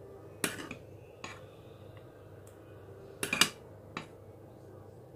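Kitchen utensil clinking against kitchenware while caramel is spooned out: about half a dozen short, sharp clinks, with a quick run of three, the loudest, about three seconds in.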